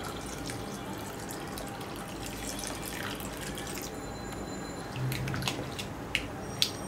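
Milk poured from a glass jug into a glass bowl, splashing and trickling for about four seconds. Then a spatula stirs the mixture, with a few sharp taps against the glass bowl near the end.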